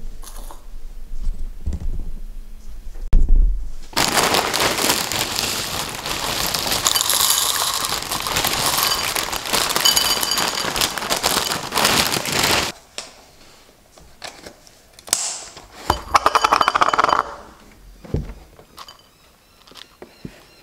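Milo Duo cereal poured from its plastic bag into a bowl, the pieces rattling into the bowl and the bag crinkling for about eight seconds. After that come shorter rustles and a single knock.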